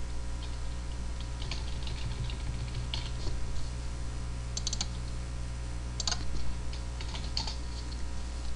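Computer keyboard keys and mouse buttons clicking in scattered short runs as a file name is typed, over a steady low hum.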